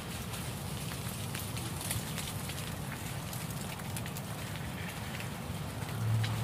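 Outdoor ambience: a low, fluttering wind rumble on a phone microphone with many faint scattered ticks, and a short low hum near the end.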